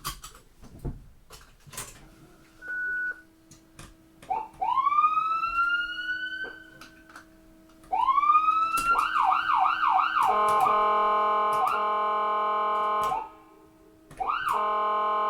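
Electronic ambulance siren being cycled through its tones. After a few clicks and a short beep, it winds up in two rising wails that sag back down, then rises again into quick yelps. From about ten seconds in it holds a steady blaring tone for about three seconds, cuts off, and starts again with a wail and yelps near the end.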